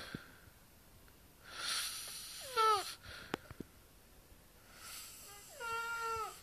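Snoring in two cycles about three seconds apart. Each is a hissing breath followed by a high, squeaky whine that falls in pitch.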